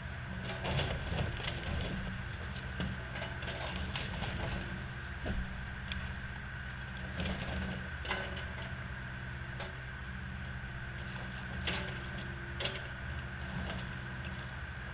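Compact excavator's diesel engine running steadily while its bucket tears into a mobile home, with irregular cracks and crunches of splintering wood and crushed wall panels.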